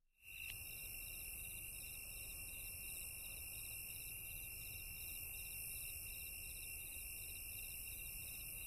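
Faint, steady high-pitched chirping: a few held high tones, one pulsing several times a second, over hiss and a low hum. It starts just after a moment of silence and runs on evenly.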